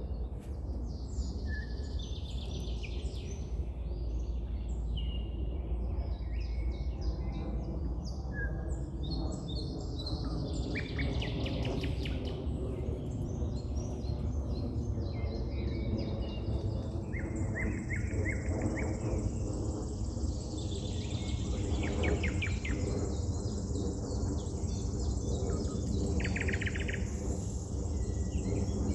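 Wild birds singing and calling: many short chirps and trills that come and go, over a steady low rumble. From about halfway a thin, steady high tone joins in.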